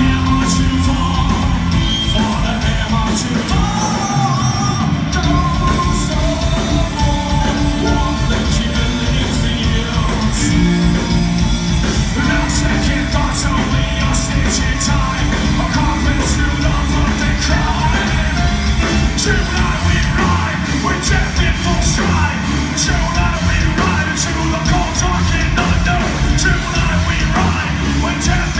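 Live rock band playing loud: electric guitar, bass guitar and drums with steady cymbal hits, under a singer who sings and yells into a microphone.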